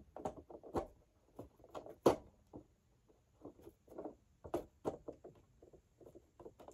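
Irregular clicks and knocks of plastic parts from working on the base of a Eureka The Boss 1934B upright vacuum while fitting its brush roll. The loudest knock comes about two seconds in.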